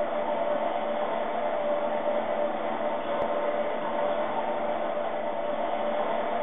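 Steady droning noise, an even hiss with a held hum-like tone, unchanging in level.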